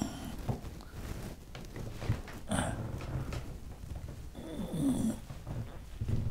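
An elderly man's effortful breathing and short grunts, with rustling movement, as he twists round and reaches up to a bookshelf behind him.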